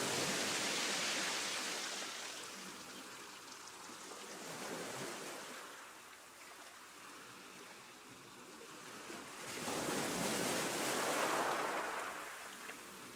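Choppy sea water washing in and out in repeated rushing swells: a loud wash at the start, a smaller one about five seconds in, and another loud one from about ten seconds in.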